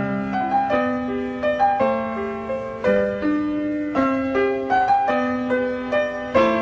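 Instrumental piano music: a melody of single notes, about two or three a second, over held lower notes.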